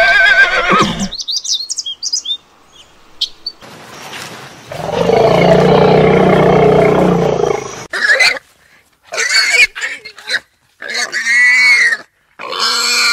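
A run of animal calls. A horse whinnies with a wavering call at the start. An elephant gives a loud call about three seconds long in the middle. Near the end, warthogs squeal and grunt in several short calls.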